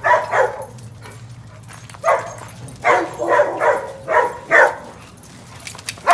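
A dog barking about eight times in uneven bursts: two barks at the start, then a run of barks after a pause of about a second and a half.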